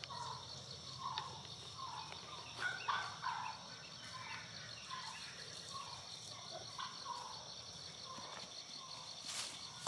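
Faint evening insect chorus, a steady high pulsing trill, with short animal calls scattered through it every half second or so.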